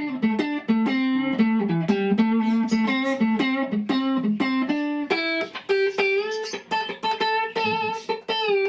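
Guitar played with chicken picking, a blues-style phrase of quick single notes plucked alternately with a pick and the middle finger, each note starting with a sharp, percussive snap.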